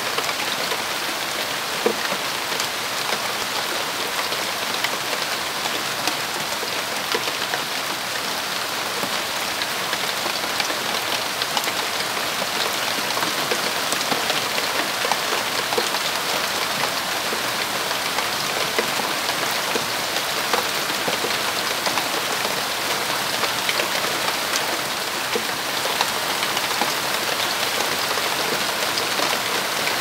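Steady rain falling on banana leaves and climbing vines: an even hiss of drops with many small sharp ticks of drops striking the leaves.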